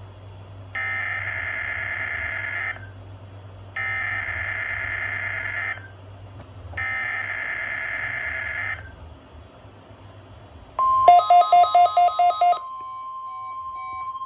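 NOAA Weather Radio SAME header for a Required Weekly Test: three bursts of digital data tones, each about two seconds long with about a second between them. About eleven seconds in, a steady tone comes on and weather-radio receivers start alarming with fast electronic beeping.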